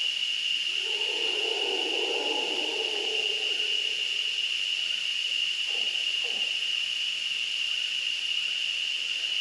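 Mantled howler monkey calling: one low roar lasting about two seconds near the start, then two short calls about six seconds in. A steady high-pitched drone runs underneath and is the loudest sound.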